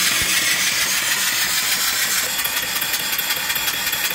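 Small mill steam engine with a 3-inch bore and 4-inch stroke running steadily at about 200 RPM, belt-driving an alternator spinning at well over 1,000 RPM; a steady hiss with a fast, even mechanical beat.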